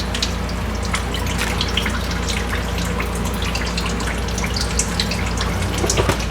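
Fluid dripping and trickling from the underside of a Fox body Mustang under teardown, many small irregular drips over a steady low hum.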